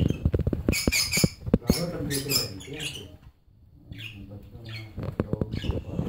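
Cockatiels making short, squeaky chirps in bursts, with sharp clicks and taps from the wire cage. A brief lull falls about halfway through.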